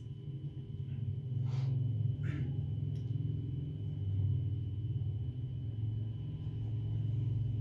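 Steady low rumbling hum of room background noise, with two brief soft rustles about one and a half and two seconds in.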